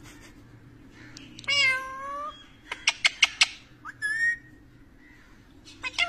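Rose-ringed parakeet calling: a drawn-out, bending call about a second and a half in, then a quick run of about five sharp chirps, and a short chirp about four seconds in.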